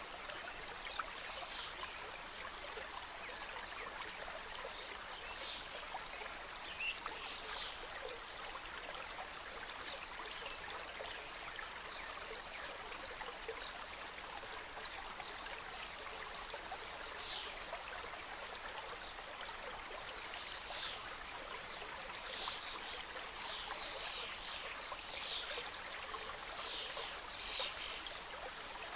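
Mountain stream flowing through a forest: a steady rush of water with short bright splashes and trickles over it, busier in the second half.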